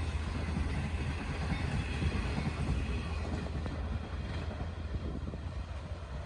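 Long Island Rail Road train led by a DE30AC diesel locomotive rumbling past on the rails, the sound slowly fading as it moves away.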